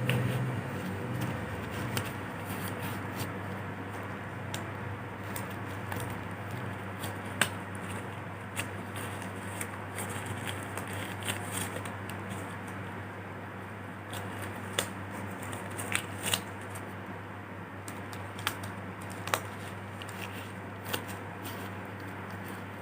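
Small handling noises: scattered light clicks and brief rustles at irregular intervals over a steady low hum.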